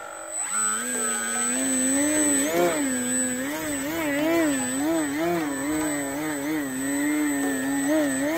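Electric motor and propeller of a QQ Extra 300 foam RC aerobatic plane running on a 3S battery while it hangs nose-up in a hover. The buzzing note rises about half a second in, then wavers up and down in pitch without pause as the throttle is worked to hold the hover.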